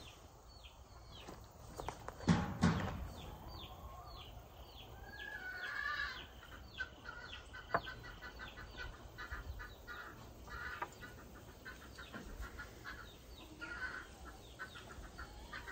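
Chickens clucking, with a run of short high chirps over the first few seconds. A single knock about two seconds in is the loudest sound.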